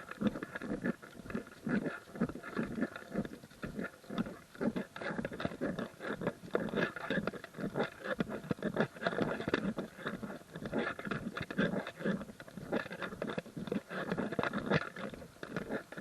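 Hikers' footsteps on the trail: a steady, uneven patter of steps.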